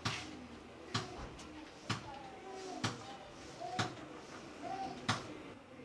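Sharp knocks repeated about once a second, six in all, like steady pounding or chopping.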